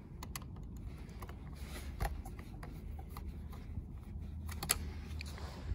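Screwdriver turning and scraping on the metal terminal screws of a stair climber's toggle switch: faint rubbing and scraping with a few sharp metal clicks, the loudest about two seconds in and again near the end.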